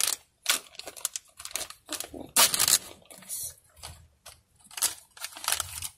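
Plastic blind bag crinkling in irregular bursts as it is pulled and torn open by hand.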